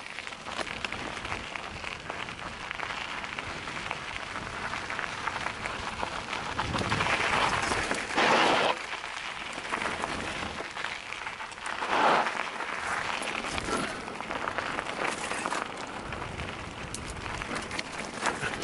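Mountain bike rolling over a rocky dirt trail: a steady crackle and rattle of tyres on gravel and loose stones, with two louder rushes of noise about eight and twelve seconds in.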